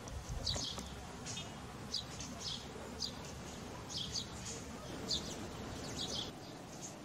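Small bird chirping outdoors: short, high, falling chirps, often in pairs, repeated about every half second.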